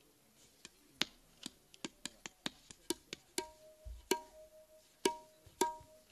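Live hand-drum percussion: sharp strikes at an uneven pace, coming several a second in the middle. From about halfway some strikes leave a short ringing tone.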